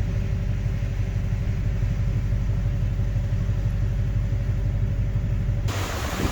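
Steady low rumble of a vehicle's engine and road noise heard inside the cabin, with a few steady hum tones. Near the end it cuts abruptly to loud wind buffeting the microphone.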